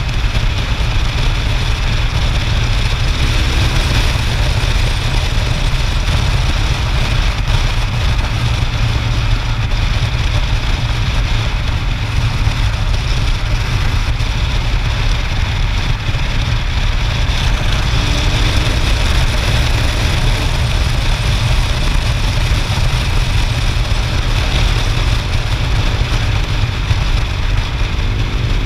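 Motorcycle riding at steady road speed, heard from a bike-mounted camera: a loud, unbroken low rumble of wind on the microphone mixed with the engine and tyre noise.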